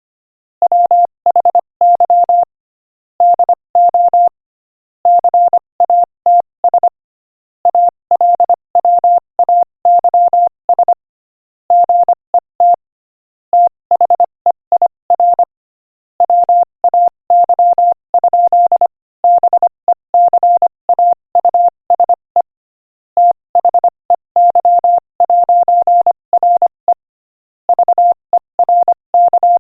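Morse code sent at 25 words per minute: a single steady beep tone keyed on and off in rapid dots and dashes, in letter groups broken by short pauses between words.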